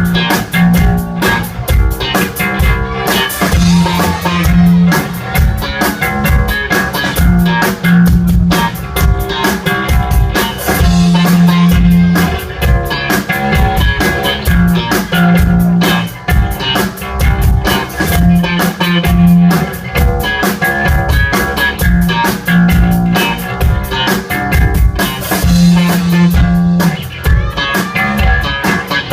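Rock music with guitar over a repeating low bass riff and a steady drum kit beat.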